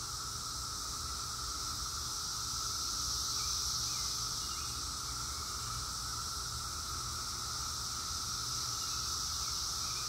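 A chorus of cicadas droning without a break, a steady wall of sound with a lower and a higher pitch held side by side.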